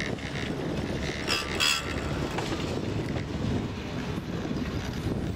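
Chairlift in motion: a steady rumble and rattle from the moving cable and chair, with a short burst of clattering about a second and a half in.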